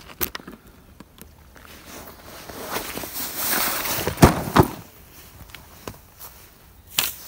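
Footsteps and the rustle and knock of fishing tackle being handled and set down on a grassy riverbank, with a few sharp knocks, the loudest about four seconds in.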